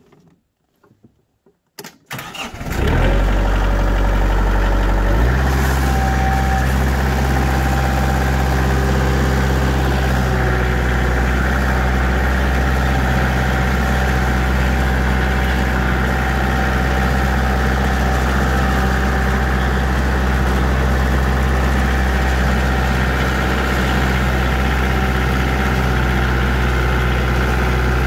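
Kioti compact tractor's diesel engine started with the key: it cranks briefly about two seconds in and catches, then runs steadily. Its speed shifts once a few seconds after starting and then holds.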